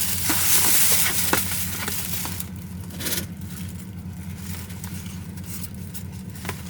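Food sizzling in a frying pan, the hiss dying down about two and a half seconds in, with a short flare about three seconds in. A steady low hum runs underneath.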